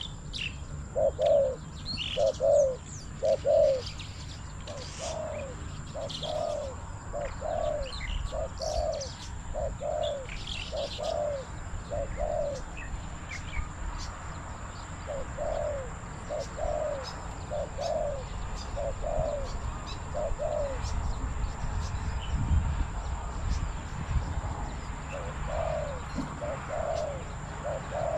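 Spotted doves cooing: a steady series of low coos, falling silent briefly just before halfway and again for a few seconds later on, then starting up again near the end. Thin high chirps from small birds sound over them.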